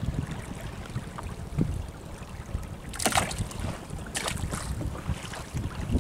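Wind buffeting the microphone on an open fishing boat at sea, a steady low rumble, with water sloshing around the boat and a few short hissing splashes about halfway through.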